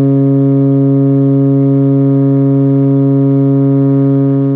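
A cargo ship's forward whistle on the foremast sounding a prolonged blast: one loud, steady, deep note that stops near the end.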